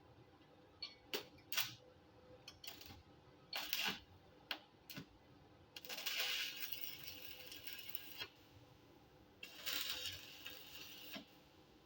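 Several light metallic clicks and taps, then two crackling bursts of electric arc welding on steel strip, the first about two seconds long and the second about a second.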